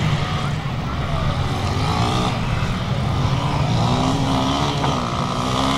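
Dirt bike engines running at the start line, idling with throttle blips that rise and fall in pitch several times.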